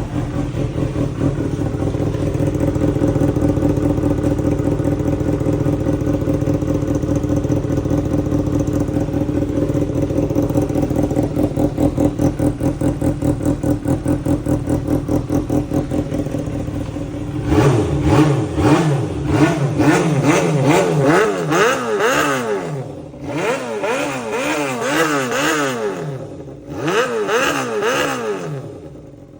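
Kawasaki Balius 250 cc inline-four motorcycle engine idling steadily, then revved in three runs of quick throttle blips that rise and fall in pitch. The owner presents it as in top form, with no abnormal noises.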